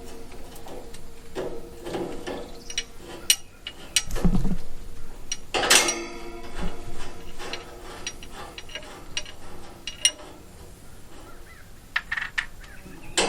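Metal hand tools, wrenches and vice grips, clicking, ratcheting and clinking against metal parts, with one louder ringing clank about six seconds in.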